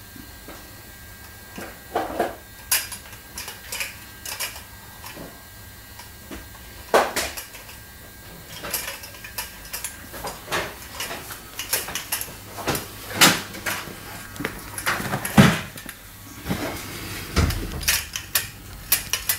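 Giant Schnauzer puppy eating dry kibble from a stainless steel bowl: irregular clinks and clatters of kibble and metal bowl, coming in uneven clusters with scattered louder knocks.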